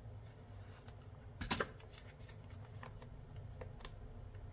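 Hands picking at and peeling the plastic wrapping off a new phone box: light crinkling and scratching clicks, with a brief louder rustle about a second and a half in.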